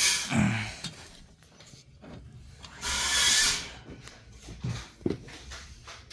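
Wooden boards being shifted by hand: a harsh scrape about three seconds in, and a few dull knocks of wood near the start and again around five seconds in.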